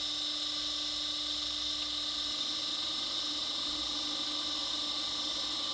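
Steady electrical whir of a running ABB ACQ580 variable speed drive and pump set, with a constant high whine over a low hum.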